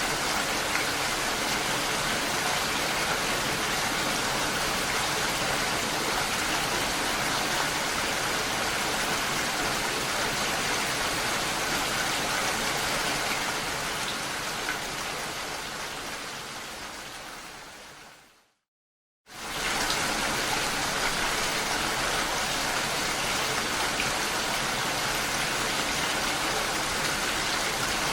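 Steady, dense rain falling; about fifteen seconds in it fades away to a moment of silence, then starts again abruptly at full strength.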